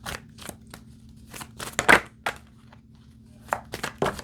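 Tarot cards being handled, flipped and laid down: a run of soft snaps and slaps, the loudest a little under two seconds in.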